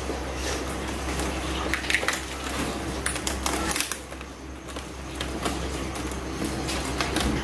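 Scattered light clicks, taps and scrapes of electrical wires being handled and pushed into a metal wall box, over a steady low hum.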